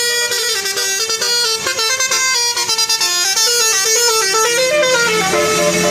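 A tour bus's telolet Basuri musical horn playing a quick tune of short notes that step up and down in pitch. Near the end the notes become longer and steadier.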